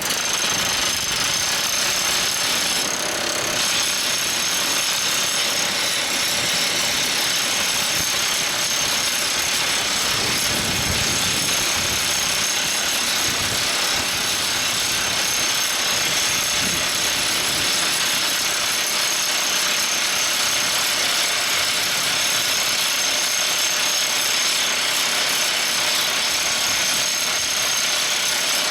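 Everdigm ECD45E top hammer drill rig drilling rock, its percussive hammer running as a steady, loud, rapid clatter that starts suddenly at the outset.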